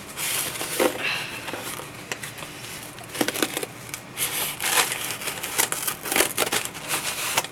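A knife blade slicing through the packing tape on a cardboard box, in irregular scraping strokes with the tape crackling and tearing.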